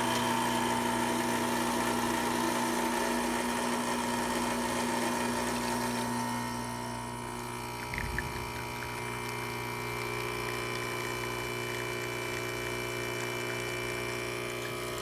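Rocket E61 heat-exchanger espresso machine's pump running steadily to pull a shot, at about 9 bars of brew pressure. About six seconds in its tone shifts and it gets slightly quieter, and a brief knock comes about eight seconds in.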